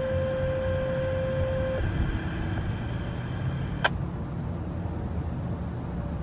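Two-tone sequential paging tones over a radio receiver: a steady tone steps down to a slightly lower one that holds for about two and a half seconds, then a brief lower tone follows, and the transmission cuts off with a click about four seconds in. These are the county's siren activation tones, sent shorter than the sirens' receivers expect, so the sirens do not respond.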